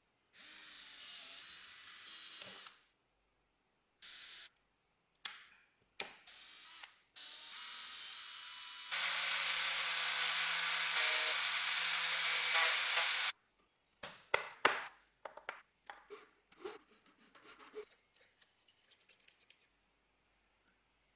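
A small table saw runs and cuts for about four seconds, its motor humming on one steady low tone under the dense hiss of the blade. Shorter bursts of scraping noise come before it, and a run of light clicks and knocks follows as pieces are handled.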